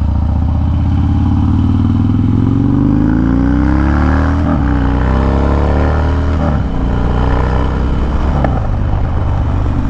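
Harley-Davidson Dyna's V-twin engine accelerating through a Bassani Road Rage 3 exhaust, rising in pitch, with two brief breaks as it shifts up, about four and a half and six and a half seconds in, then pulling steadily.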